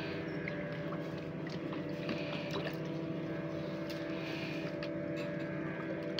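A boat engine running steadily at idle, a low even hum, with water lapping and small splashes over it.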